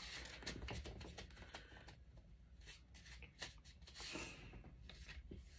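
Faint rustling and scattered small clicks and taps of craft supplies being picked up and handled on a tabletop.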